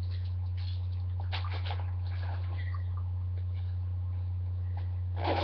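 Faint rustles and light taps of a handbag and its small contents being handled, over a steady low electrical hum.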